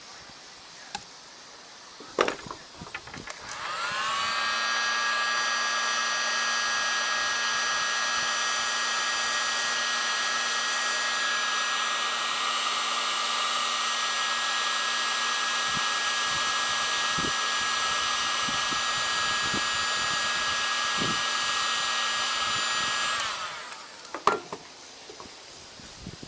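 A small handheld electric power tool's motor spins up with a rising whine, runs at a steady pitch for about twenty seconds, then winds down and stops.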